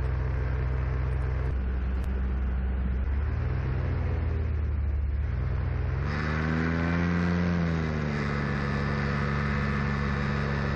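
Paramotor engine and propeller running in flight, throttled back about a second and a half in, then opened up again about six seconds in, the pitch rising to a peak and then settling to a steady run.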